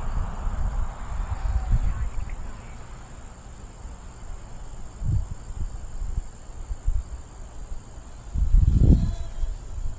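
Wind buffeting the microphone in uneven gusts, strongest near the end, over a steady high chirring of crickets. The faint whine of the small electric RC plane's motor rises and falls in pitch as it passes.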